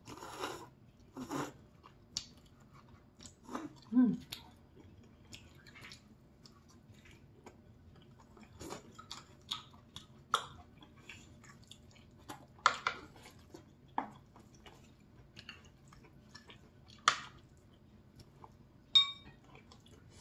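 Close-miked eating: noodles slurped and chewed, with scattered light clicks of chopsticks and a spoon against ceramic bowls. A short ringing tap of a utensil on a bowl comes near the end.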